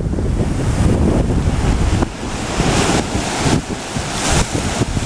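Ocean surf breaking and washing up the shore, its hiss swelling twice in the second half, with wind rumbling on the microphone throughout.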